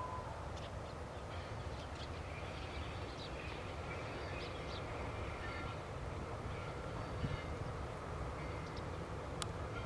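Birds calling now and then over a steady low rumble.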